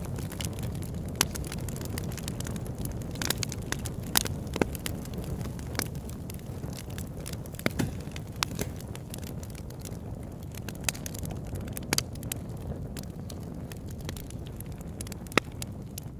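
Campfire burning: burning wood giving off irregular sharp crackles and pops over a steady low rumble of the fire.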